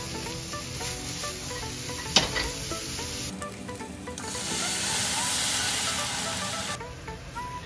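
Sliced onion, carrot and shishito peppers sizzling in oil in a frying pan, with a sharp knock a little after two seconds. From about three seconds in, a louder, brighter sizzle as the soy sauce, sake and mirin seasoning mix is poured into the hot pan, dying down near the end.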